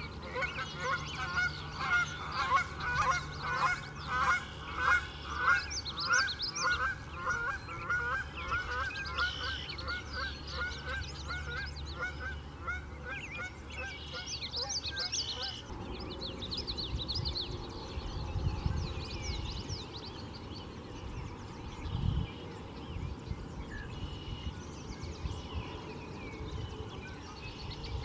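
Male common yellowthroat singing its quick, high phrases in short bouts. Over roughly the first half, a louder, lower series of repeated calls from another animal runs about two a second over a steady low rumble, and both cut off suddenly about halfway through.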